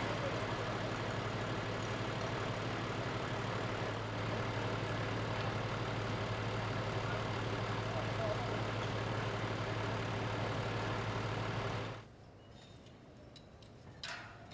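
Construction machinery engine idling steadily, with a low hum. It cuts off suddenly about twelve seconds in, leaving a quieter background with a couple of light clicks near the end.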